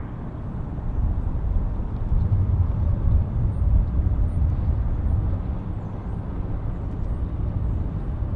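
Boeing 747-400's four jet engines at taxi power, heard from a distance as a low steady rumble that swells a little about a second in.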